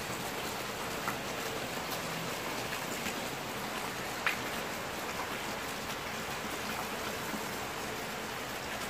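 Steady, even hiss of background noise, with a single faint click about four seconds in.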